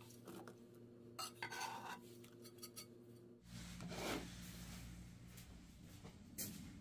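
Light rubbing and scraping clicks of a plastic food-chopper bowl being handled and moved on a wooden table, over a faint steady hum.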